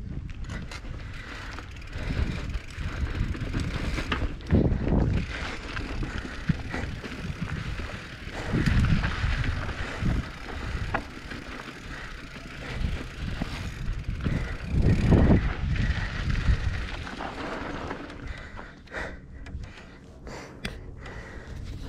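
Mountain bike rolling down a dirt trail: steady tyre and rattle noise with surges of wind rumble on the microphone and scattered clicks and knocks.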